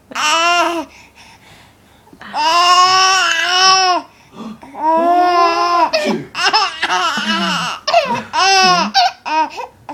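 Baby laughing and babbling in about six high-pitched, drawn-out squeals with short pauses between them.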